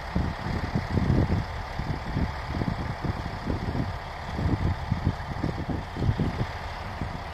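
Heavy earthmoving machinery running, chiefly a tracked bulldozer's diesel engine, as a steady drone with uneven low rumbling.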